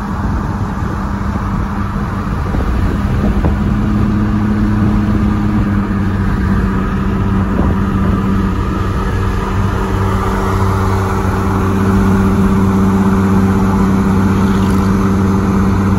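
Ford Explorer Sport Trac's 4.0 L V6 through a Magnaflow exhaust, heard from the next lane at highway speed. It is a steady exhaust drone over tyre and wind noise, growing a little louder about three-quarters of the way through.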